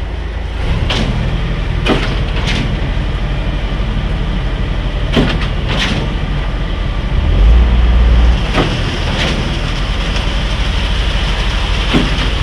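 Diesel engine of a truck used for pouring concrete, running steadily and heavily. Sharp knocks come every second or so, and there is a louder, deeper surge about seven seconds in.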